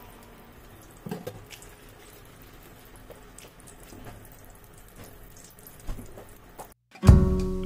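Butter sizzling faintly in a hot stainless steel frying pan, a low fizz with light crackles. Near the end the sound cuts out for a moment and loud acoustic guitar music starts.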